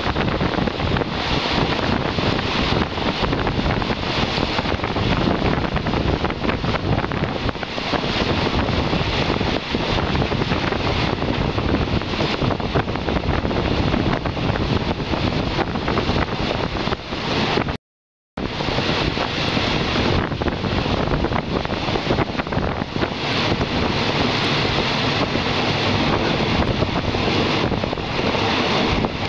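Wind buffeting the microphone at the window of a moving passenger train, mixed with the train's steady running noise. The sound cuts out completely for about half a second a little past the middle, then resumes as before.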